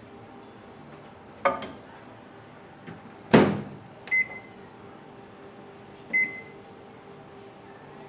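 Microwave oven being shut and set going: a couple of clicks, the door closing with a thump, two short keypad beeps, then a steady hum as the oven runs on high.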